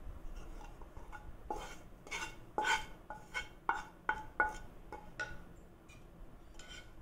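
Spatula knocking and scraping against a metal pan as sautéed vegetables are pushed out of it: a run of about ten sharp clinks, each with a brief metallic ring, then one more clink near the end.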